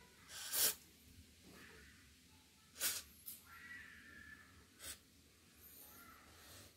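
Aerosol lubricant can spraying through its straw into an embroidery machine's needle mechanism in about three short hisses, the first the longest.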